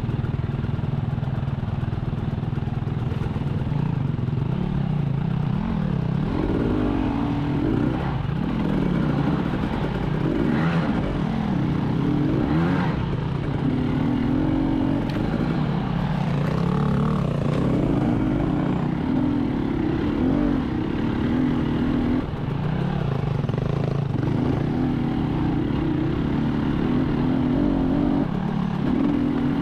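Enduro motorcycle engine riding off-road, its revs rising and falling over and over as the throttle is worked.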